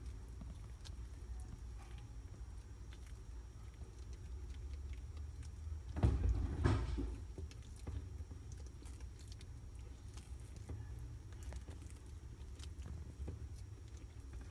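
Baby Indian star tortoises biting and tearing lettuce leaves: faint, irregular small crisp clicks and crunches over a low steady rumble. A louder noise, about a second long, comes near the middle.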